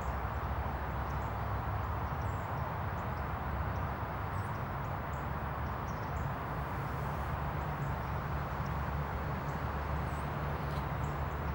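Steady outdoor background rumble with faint, brief high bird chirps scattered through it.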